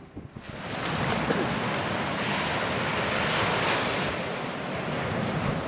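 Coastal ambience of wind and surf: a steady, even wash of noise that starts about half a second in.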